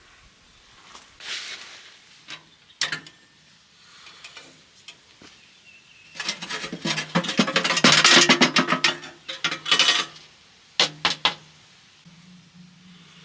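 Metal utensils and cookware clattering: a few separate clicks at first, then a dense stretch of rapid clicking and scraping lasting about four seconds, and two more clicks near the end.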